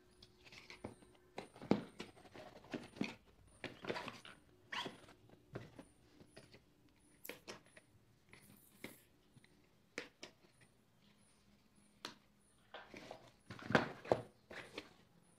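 A cardboard retail box being opened and handled: irregular quiet scrapes, rustles and light taps, the loudest cluster near the end.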